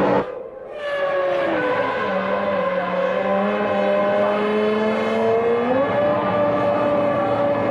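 Formula One car engine at high revs. Its pitch falls in steps as the car slows about one to two seconds in, holds steady, then rises near six seconds as it accelerates again.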